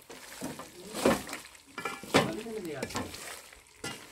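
Wooden spoon stirring and scraping diced cooked meat in a large metal pot, with a light sizzle as lumps of sheep's tail fat melt in. The scrapes come loudest about a second in and again about two seconds in.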